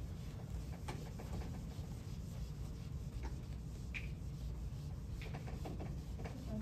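Quiet room tone: a steady low hum with a few faint scattered taps and rubs.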